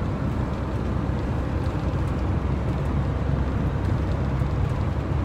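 Steady low road and engine rumble heard inside a motorhome's cab while it drives.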